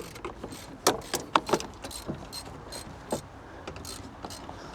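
Plastic trim clips being pried loose from a truck's interior panel: a quick run of sharp, irregular clicks and snaps about a second in, then a few single clicks.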